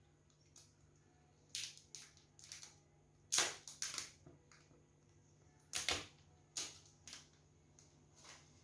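A string of small sharp clicks, taps and knocks in irregular clusters: hands handling a new smartphone and its plastic accessories, with the loudest knocks about three and six seconds in.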